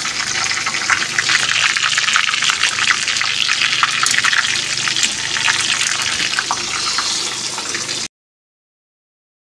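Hot oil sizzling and crackling in a karahi as sliced onions, cumin, curry leaves and whole red and green chillies fry for a tarka; the sound cuts off abruptly about eight seconds in.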